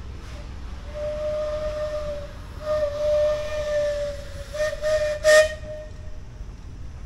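A steam whistle blowing three blasts on one steady note, the first two about one and a half to two seconds each, the third running to about six seconds in. A short, loud rush of noise cuts in during the third blast.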